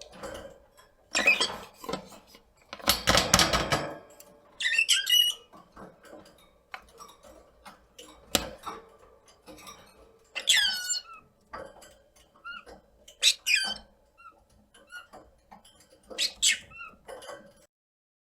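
A pet rosy-faced lovebird calling. Two harsh, screechy squawks come in the first few seconds, followed by four shrill, piercing calls that fall in pitch, spaced a few seconds apart. The sound stops shortly before the end.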